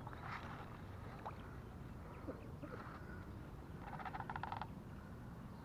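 Spinning reel cranked in a quick burst of rapid clicking, about four seconds in, as a bluegill on a fly popper is reeled in. Soft outdoor background with a low rumble.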